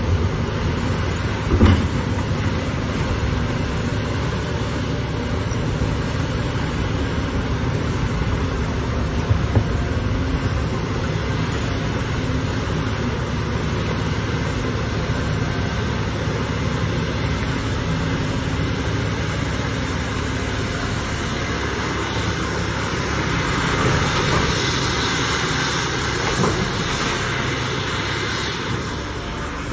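Heavy machinery running steadily: a continuous engine drone and mechanical rumble, with a sharp knock about two seconds in and a smaller one near ten seconds.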